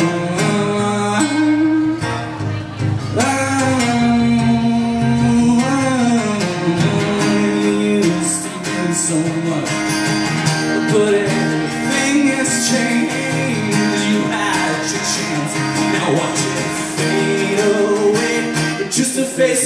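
Live performance of a pop-rock song: a male voice sings a drawn-out, sliding melody over acoustic guitar for the first several seconds, then the guitar plays on with steady strumming and little or no singing.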